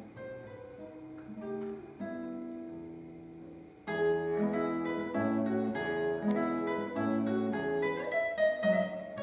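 Solo classical guitar: a few soft, held plucked notes, then about four seconds in a sudden louder, busier passage of quick plucked notes.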